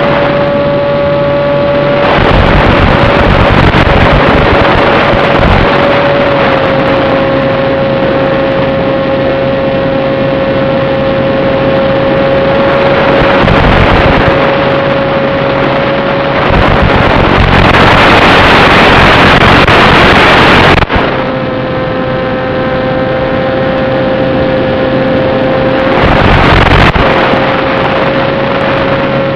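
Brushless electric motor and propeller of a small FPV foam wing whining at a steady cruise pitch (a Turnigy 2822 motor turning a 7060 prop), heard through the analog FPV video link under constant hiss and wind. The hiss swells into loud static several times, longest near the middle, as the 5.8 GHz signal breaks up at long range.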